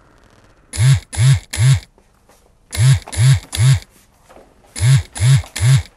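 Phone ringing: a loud ringtone of three short warbling tones, repeated about every two seconds.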